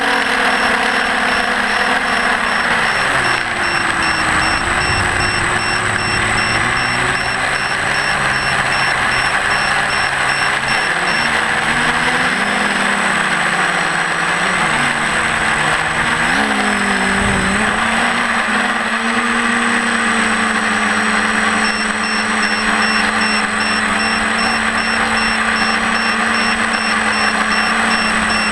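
Electric motors and propellers of a small FPV aircraft running, their hum rising and falling with the throttle over a rush of air. A rapid high-pitched beeping runs through the first ten seconds or so and comes back near the end.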